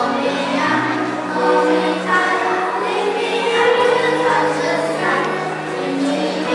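Choir singing a slow song in long held notes.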